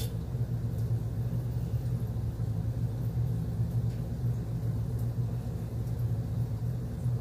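A steady low mechanical hum that holds even throughout, with no clear events in it.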